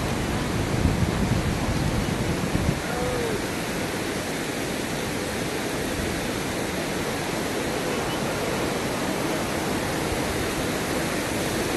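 Fast mountain river rushing over rocks: a steady, even sound of white water.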